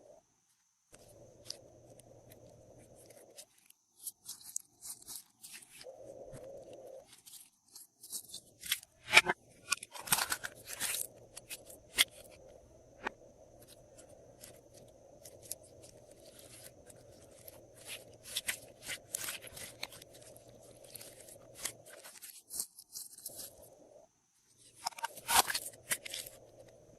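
Glossy slime being squished and mixed by hand: a run of sticky clicks and crackly pops, bunched loudest about nine to eleven seconds in and again near the end.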